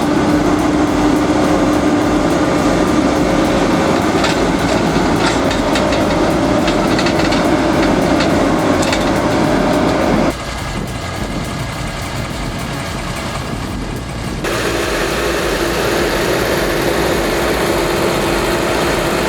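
Heavy diesel machinery running steadily, with scattered sharp clicks in the first half. The sound drops and changes abruptly twice, about ten and fourteen seconds in.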